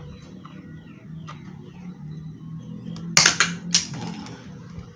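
A quick cluster of sharp metallic clicks and cracks about three seconds in, with one more shortly after: pliers breaking off the twisted copper wire ends at a junction box. A low steady hum runs underneath.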